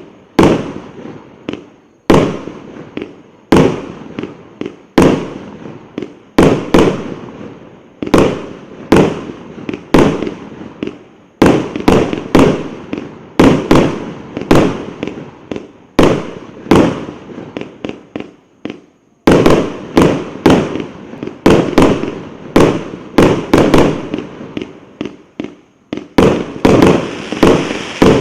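The 'Ivan Grozny' multi-shot fireworks battery (cake) firing: a string of loud, sharp bangs, each dying away over about half a second. At first they come about one a second, then closer together through the second half.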